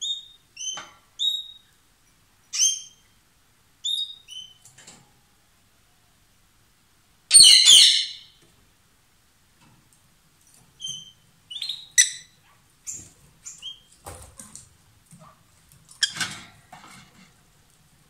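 Rosy-faced lovebirds calling: short, sharp, high chirps about a second apart, with one loud harsh screech lasting under a second about seven seconds in, then a quicker run of chirps later on.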